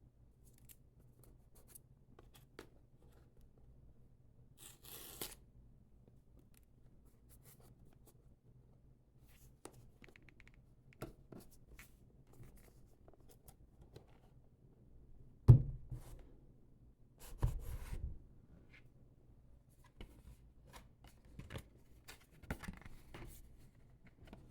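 Hands handling a smartphone's retail box: scattered small taps, scrapes and rustles, with one sharp knock about fifteen seconds in and a brief scraping rustle just after.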